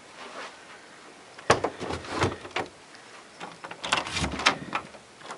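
Knocks, clicks and rattles of a door being handled and a camera bumping close to the microphone, in two clusters: one from about a second and a half in, the other near four seconds.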